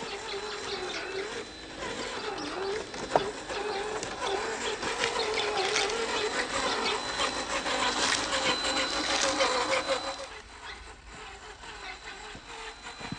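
Cross RC Demon scale crawler's electric motor and geared transmission whining as it drives, the pitch rising and falling with the throttle, with one sharp click about three seconds in. The whine stops about ten seconds in.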